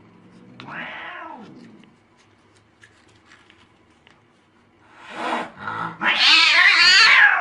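Domestic cat yowling angrily: a short meow falling in pitch about a second in, then from about five seconds a loud, long yowl that wavers up and down in pitch.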